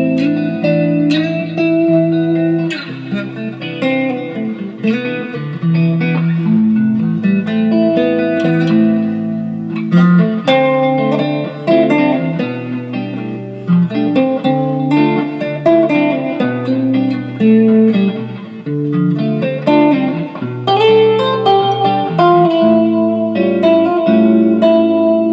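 Electric guitar playing a chord progression, with ringing chords and single notes that change every second or so.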